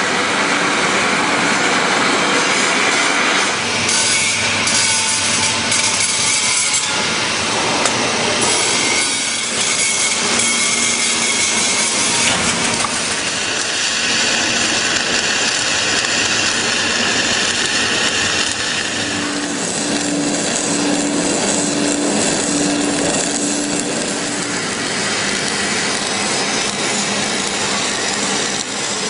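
Continuous harsh metalworking noise on a steel pipe bevel: a steady hiss with faint steady tones, running without a break.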